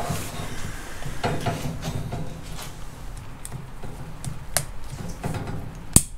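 Light handling noise from fingers working a blue plastic hook-up plug and its grey cable as wire ends are fed into its push-fit terminals. There are scattered small plastic clicks, and one sharp, loud click about six seconds in.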